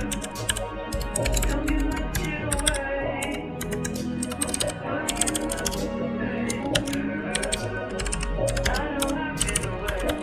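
Computer keyboard typing, a fast irregular run of key clicks, over background music.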